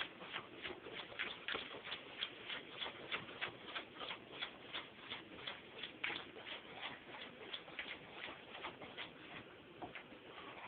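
Wire whisk beating pancake batter in a bowl, clicking against the bowl's sides in a steady rhythm of about three strokes a second.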